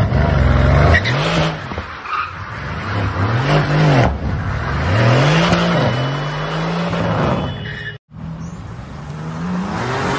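Car engine revving hard in repeated swells, its pitch rising and falling each time, while the tyres spin and squeal in a smoky burnout-drift. The sound cuts out briefly about eight seconds in, then another car's engine revs up.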